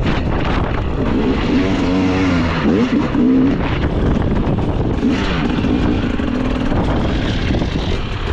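Enduro motorcycle engine running under way, its pitch rising and falling as the throttle is worked, twice in a row. A rough rush of noise runs underneath.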